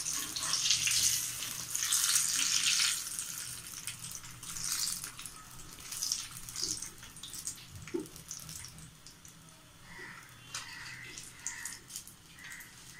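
Battered brinjal bajjis deep-frying in hot oil: a sizzle with crackles, strongest for the first three seconds, then thinning to scattered crackles as the bajjis are lifted out of the oil with a wire strainer.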